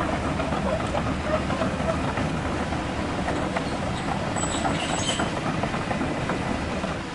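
A metal RC hydraulic excavator (CAT 336 replica) running its hydraulic pump under load as its ripper tooth tears through hardpan, with a scatter of small clicks and crunches from stones. The steady mechanical noise eases near the end as the arm lifts clear.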